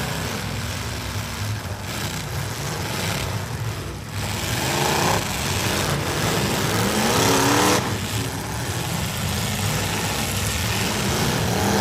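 Several demolition derby trucks' V8 engines running hard together, with engine pitch climbing as they rev, once about four seconds in and again past the halfway point.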